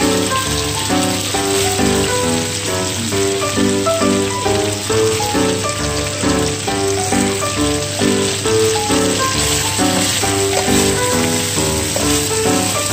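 Onion slices frying in sauce in a nonstick pan, sizzling steadily, under background instrumental music with a melody of short notes.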